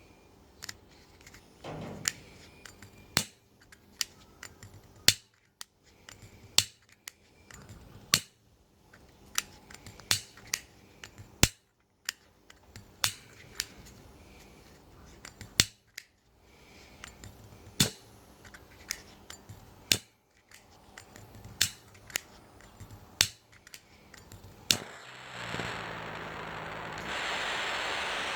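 Gas soldering iron's igniter clicking over and over, sharp single clicks at irregular intervals of about a second, as it struggles to light. Near the end the gas catches and a steady hiss of the burning flame begins.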